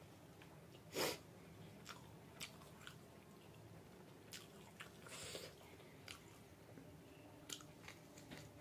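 Faint mouth sounds of a person chewing a meal of rice and curry: scattered soft, wet smacks and clicks, with the loudest about a second in.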